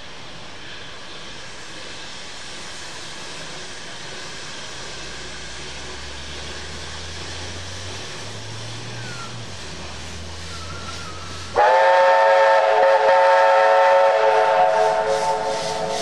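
A steady hiss, then about eleven seconds in the VR 5 chime steam whistle on narrow-gauge NA class 2-6-2T locomotive 12A sounds one long, loud chord of several notes for about three seconds before tailing off. As it fades, steam hisses in a quick even beat, about three to four a second.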